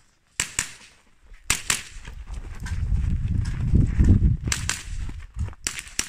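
.22 LR rifle shots fired in quick pairs, sharp cracks about a second into the stage and again in a faster string near the end, with a low rumble underneath in the middle.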